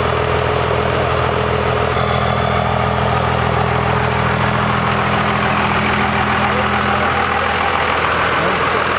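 Dodge Ram pickup's Cummins diesel engine idling steadily.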